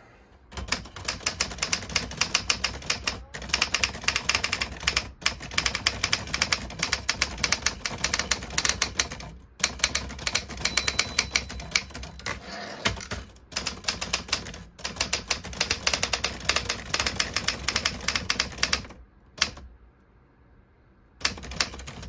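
Commodore (Consul) standard manual typewriter, freshly cleaned and adjusted, being typed on fast: a dense run of keystrokes and typebar strikes with a few brief pauses. It stops about nineteen seconds in, and a few more strokes come near the end.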